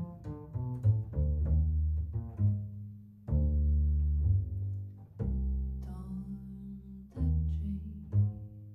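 Upright double bass played pizzicato in the slow intro to a jazz ballad. A run of quick plucked notes comes first, then from about three seconds in, low notes plucked roughly every two seconds and left to ring.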